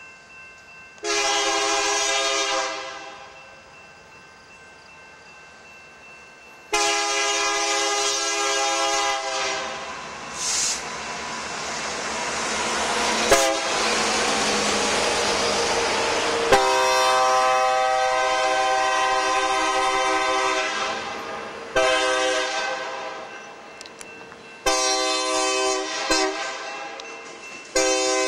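EMD GP60M diesel locomotive sounding its multi-note air horn in repeated blasts as it approaches. About ten seconds in it passes close by, its two-stroke V16 diesel engine and the wheels on the rail loud for several seconds, with a sharp click about thirteen seconds in. A long horn blast and three shorter ones follow as it nears a grade crossing.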